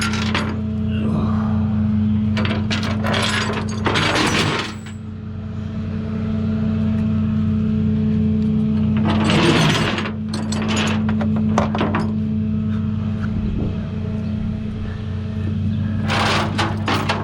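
A vehicle engine idling steadily with a low hum, overlaid by intermittent metallic clinks and rattles of tools or hardware being handled, several times.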